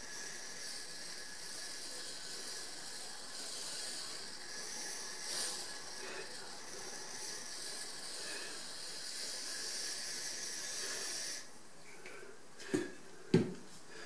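Pipe-freeze aerosol hissing steadily as refrigerant is sprayed into an insulation cup around a 15mm copper pipe to build an ice plug. The hiss cuts off about eleven seconds in, followed by two sharp knocks near the end.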